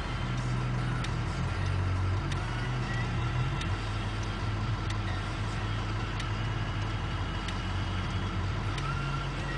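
Snow plow train's locomotive engine running steadily with a low drone, with faint clicks and rattles now and then.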